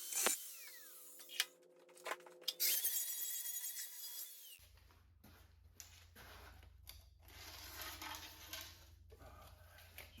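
Angle grinder in short bursts of cutting on steel, among sharp metal clinks; the longer burst dies away with a falling whine. About halfway through a steady low electrical hum comes in under faint scraping and handling.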